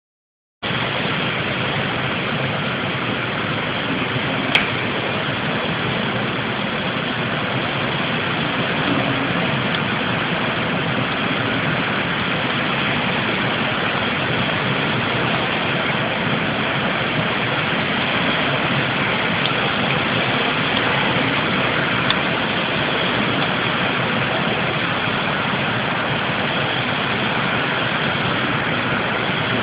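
Steady rushing background noise with no distinct tone, broken by a single sharp click about four and a half seconds in.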